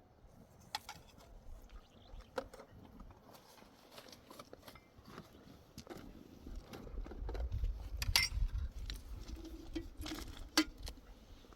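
Scattered light clicks and knocks, as of objects being handled, with a low rumble building up about halfway through.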